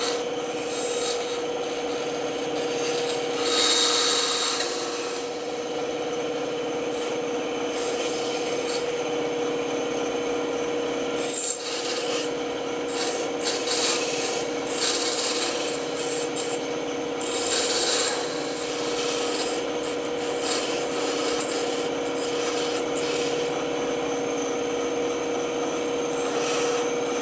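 Band saw running with a steady hum while its blade cuts through wood, the cutting noise swelling every few seconds as the piece is fed and turned.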